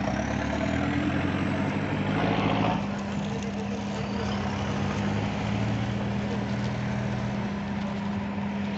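An engine running steadily with a constant low hum, amid roadside traffic noise.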